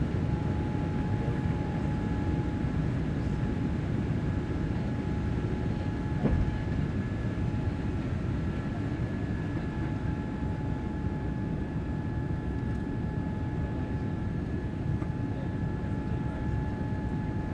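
Cabin noise of a Boeing 787-8 climbing out after takeoff: a steady low roar from its General Electric GEnx engines and the rushing air, with a thin steady whine above it. There is a brief thump about six seconds in.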